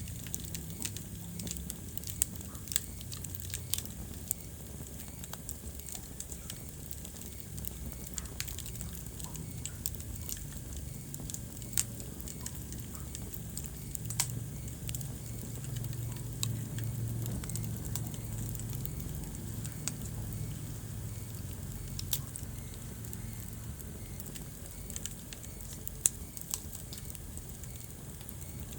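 Wood fire burning in a fireplace: a low steady rumble of flames with irregular crackles and occasional sharper pops.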